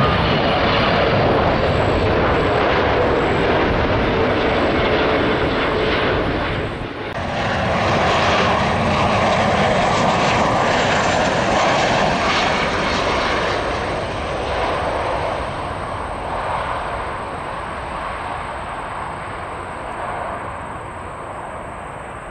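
Jet noise from a Boeing 777 on final approach, steady with faint whining tones; about seven seconds in it cuts to a Boeing 737 landing, its jet noise swelling and then slowly fading as it rolls out.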